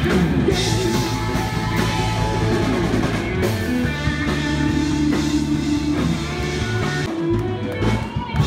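Live rock band playing, with electric guitar, bass guitar and drum kit.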